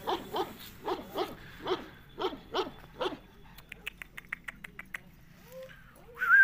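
Dogs barking in a steady run, two to three barks a second, for the first three seconds. Then a quick rattle of about ten clicks, and a short, high squeal at the very end.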